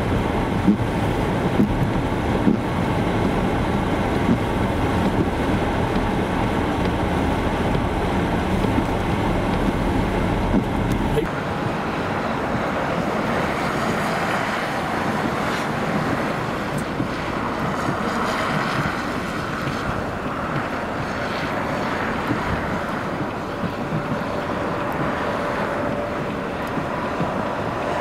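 Blizzard wind blowing across the microphone, over a low vehicle rumble with a few knocks. About eleven seconds in the rumble drops away, leaving a steady gusting hiss of wind.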